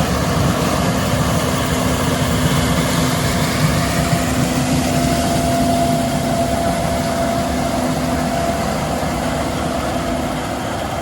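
Case IH 7130 Axial-Flow combine running while harvesting corn: a steady machine drone with a held whine, easing slightly near the end.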